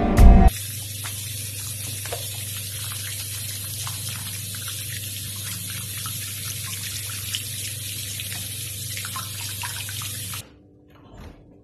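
Tap water running into a bathroom sink while hands are scrubbed under the stream, with small splashes. It starts about half a second in and cuts off suddenly near the end.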